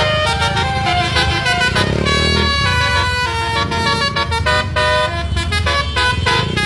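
Basuri multi-tone 'telolet' air horn playing a quick melody, several horn notes sounding together and changing pitch every fraction of a second, over a steady low engine rumble.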